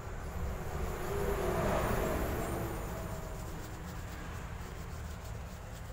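Passing road traffic: a vehicle's noise swells to a peak about two seconds in and slowly fades, over a steady low rumble.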